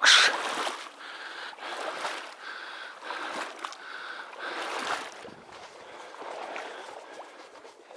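Water sloshing and splashing as a person wades through bog water in waders, in repeated surges with each stride. A loud sudden noise opens it.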